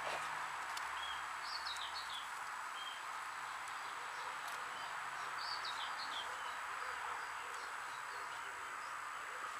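Steady outdoor background hiss with small birds chirping, a short run of chirps about one and a half seconds in and another around five and a half seconds.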